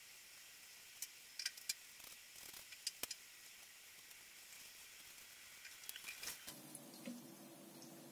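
Sodium metal reacting slowly in anhydrous ethanol, giving faint sporadic ticks and crackles as hydrogen bubbles form and pop. At about six and a half seconds the background changes abruptly to a low steady hum.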